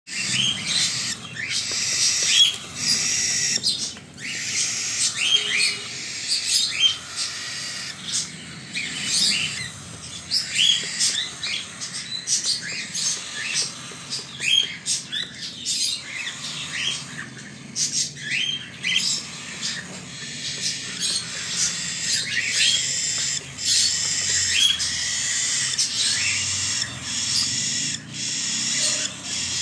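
Cockatiel chick food-begging calls during hand-feeding: many short rising chirps repeated over a raspy hiss.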